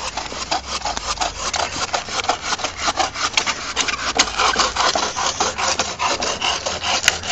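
Hand bow saw cutting through a tree trunk, its blade rasping through the wood in quick, even back-and-forth strokes.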